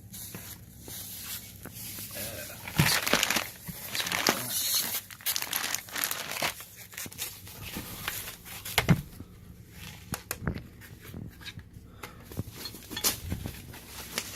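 Packaging being handled as a new TV's box is unpacked: irregular crinkling, rustling and tearing, with a few sharp knocks.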